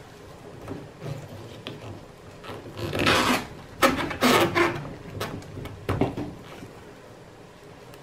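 Plastic bath-water supply pipe fitting on a Hitachi NW-7MY washing machine being twisted and pulled out of its port: plastic scraping and rubbing on plastic in two stretches about three and four seconds in, followed by a couple of sharp clicks.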